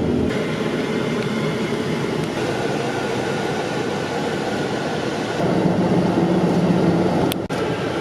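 Steady rumbling noise of a moving vehicle. A low hum joins in about five and a half seconds in, and the sound cuts out briefly near the end.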